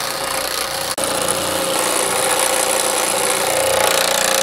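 Baileigh PH-19 reciprocating power hammer running at its rapid stroke rate (about 1700 beats a minute) with a beading die, hammering a bead into a sheet-metal panel: a loud, steady, fast mechanical hammering.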